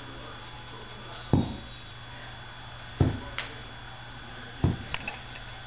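Three dull thumps about a second and a half apart, with a faint click between the first two, over a steady low hum.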